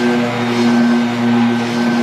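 Background music with sustained held tones.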